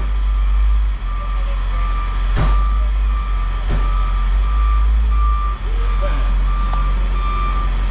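A vehicle's backup alarm beeping in a steady repeating pattern over a low, steady engine rumble, with a couple of short metallic knocks.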